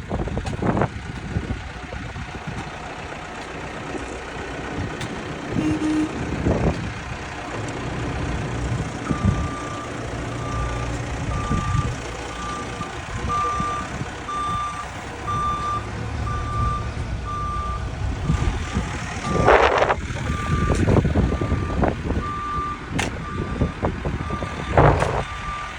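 Backhoe diesel engine running with a low rumble. From about nine seconds in, its reversing alarm beeps steadily about once a second. A few short knocks or scrapes come near the end.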